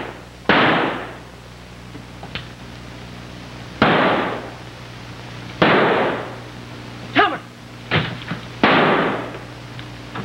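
Pistol shots in a gunfight: four sharp cracks a few seconds apart, each trailing off in an echo over about half a second, with a steady low hum underneath.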